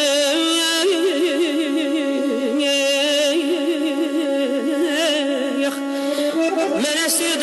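Music: a slow melody line that wavers widely in pitch, over a steady held lower note.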